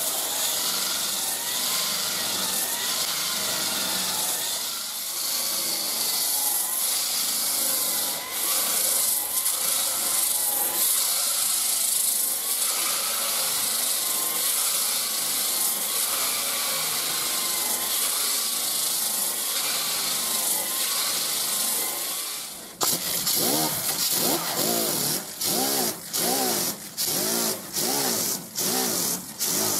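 Corded variable-speed sander/polisher with a coarse 36-grit fibre resin disc grinding bare sheet metal over a glued patch panel seam: a steady grinding hiss with a wavering motor whine, the prep before body filler. About 23 seconds in it gives way to a small handheld air sander worked in short strokes, its sound rising and falling about one and a half times a second.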